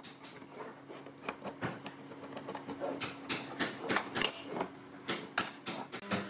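Light knocks, taps and scrapes of pine boards and a marking gauge being handled on a wooden workbench, over a faint steady hum.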